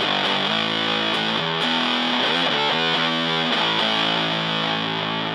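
Electric guitar (Fender Stratocaster) played through a Super Power-Fuzz, a modded Big Muff, with its clipping switch on the LED diodes, into a Fender Blues Junior amp. It plays sustained, heavily fuzz-distorted notes and chords with a few pitch bends.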